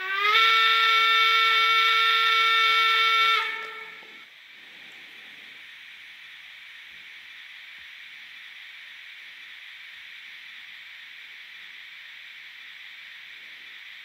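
Digital sound decoder of a Fleischmann HO-scale Br 18 steam locomotive model sounding its steam whistle for about three and a half seconds, sliding up slightly in pitch at the start and then held, from the model's small speaker. After the whistle cuts off, a quieter steady steam hiss continues.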